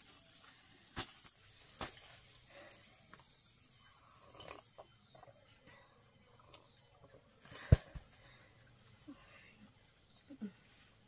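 Insects droning in one steady high pitch that cuts off suddenly about four and a half seconds in, followed by fainter repeated chirping. A few sharp clicks sound over it, the loudest a little under eight seconds in.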